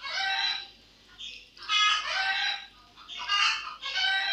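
Chickens clucking nearby: about five short, high-pitched calls, roughly one a second.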